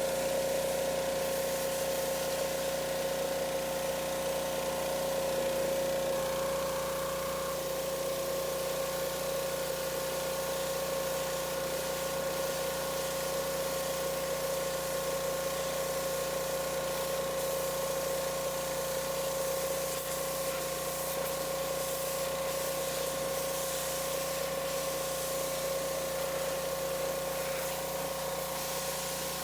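Pressure washer running steadily, its motor making a constant hum under the hiss of the water jet spraying.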